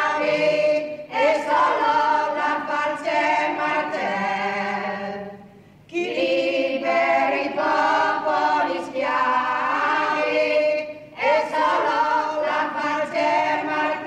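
A choir of voices singing unaccompanied in long phrases, with short breaks about six and eleven seconds in.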